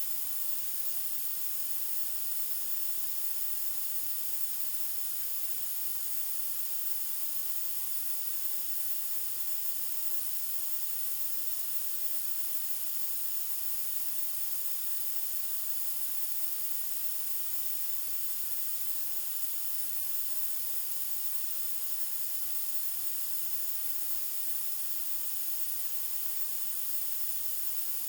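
White noise: a steady, unchanging hiss, brightest in the treble.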